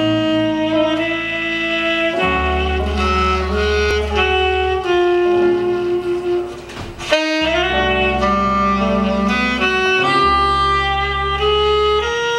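A saxophone plays a jazz melody in long held notes over low electric bass notes. It pauses briefly a little over halfway through, then carries on.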